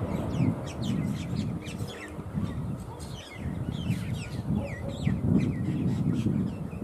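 Small birds chirping repeatedly, with short calls that slide downward, a few each second, over a steady low rumble.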